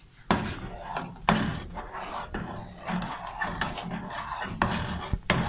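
A spoon stirring and scraping in a steel pan of milk and nuts, knocking against the pan about once a second, then a hand rubbing against a glass bowl.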